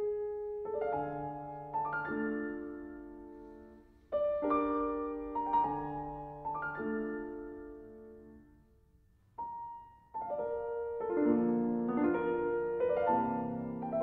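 Solo piano playing soft, slow Romantic music: quick rising flourishes of high notes, each ending on a held chord that rings and dies away before the next phrase. A pause comes about two-thirds of the way through, and after it the music grows fuller and denser.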